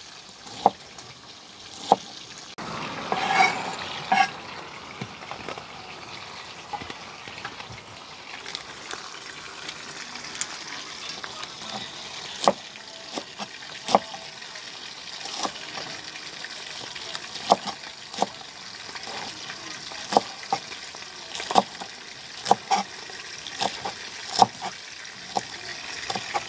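Kitchen knife chopping onion and scallion on a plastic cutting board: irregular sharp taps of the blade striking the board, over a steady hiss.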